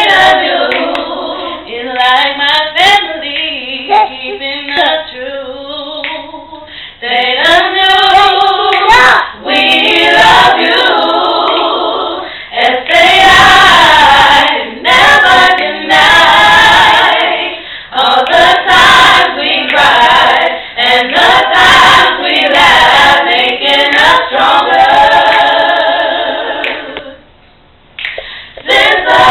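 A group of women singing together a cappella, with a short break about two seconds before the end.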